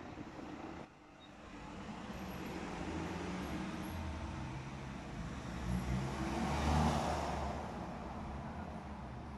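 A motor vehicle driving past: a low engine rumble that swells to a peak about seven seconds in, then fades.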